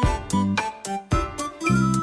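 Music with a steady, quick beat of about three to four strokes a second, and a melody line that holds a long note near the end.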